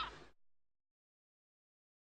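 The last of a short musical intro sting dies away in the first moment, then digital silence.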